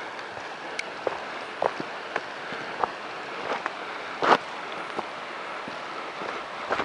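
A hiker's footsteps on rock and gravel: irregular crunches and scuffs, the loudest about four seconds in, over a steady hiss.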